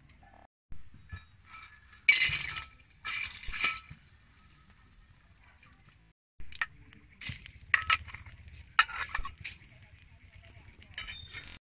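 Metal spatula clinking and scraping against a steel wok while stirring roasting insects, in irregular clusters of short sharp strokes.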